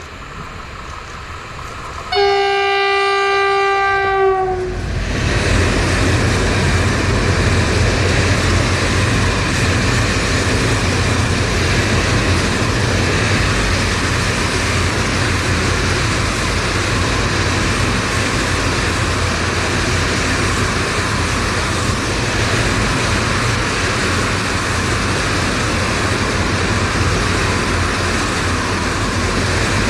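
An electric train sounds one long horn blast about two seconds in, its pitch sagging slightly as it ends, then runs past close by with a loud, steady noise of wheels on the rails.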